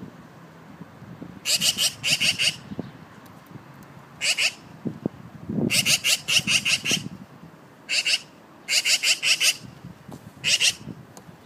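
Black-billed magpie giving its harsh chattering rattle: rapid runs of 'chack' notes in six bursts, some short, some about a second long, with short pauses between.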